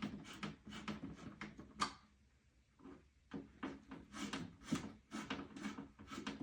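Screws being turned down by hand with a screwdriver: a run of short scraping, creaking turns, about three a second, with a pause of about a second near the middle.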